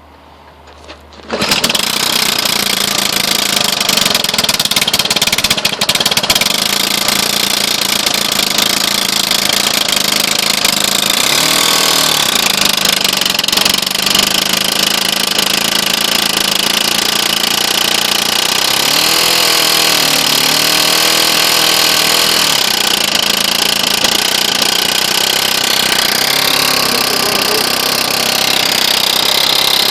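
Stroker-converted 6hp Tecumseh LEV105 single-cylinder mower engine starting up about a second in, then running loud and steady, its pitch shifting a few times.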